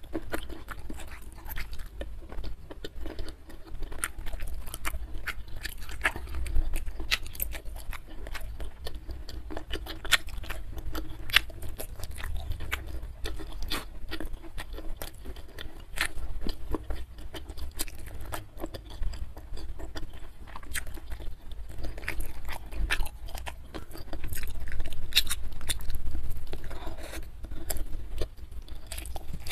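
Close-miked chewing and mouth sounds of a person eating a rice meal with her fingers, with irregular sharp clicks throughout and a louder, busier stretch near the end.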